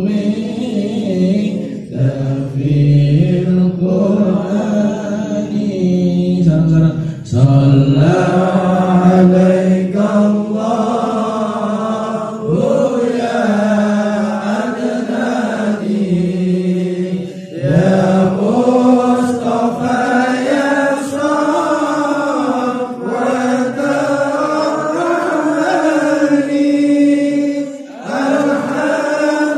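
A man singing an Arabic sholawat (devotional praise of the Prophet) into a microphone, without instruments, in long held and ornamented phrases with brief pauses for breath between lines.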